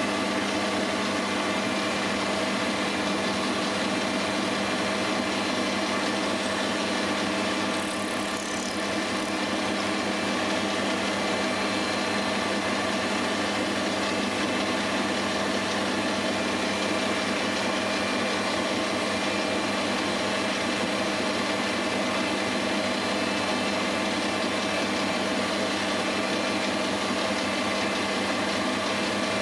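Mini metal lathe running steadily while turning a metal workpiece: an even motor-and-gear whine over a hum.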